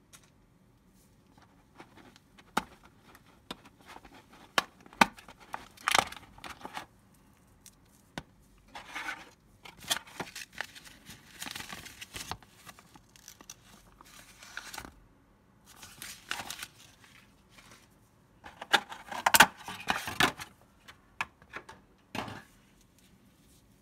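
Clear plastic packaging tray and a folded paper user guide handled with gloved hands: irregular crinkling and rustling with scattered sharp clicks, in several louder bursts.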